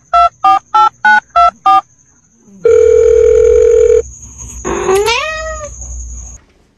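Telephone keypad tones: six short beeps, about three a second, each made of two pitches. Then comes a long steady beep like a dial tone, and about five seconds in a cat's meow rising and then falling in pitch.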